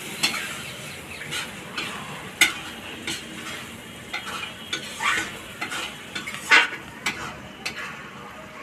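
A metal spoon stirring and scraping through paneer curry in a metal wok, with irregular scrapes and clinks against the pan about every second or so, over a steady sizzle of the gravy cooking on a wood fire.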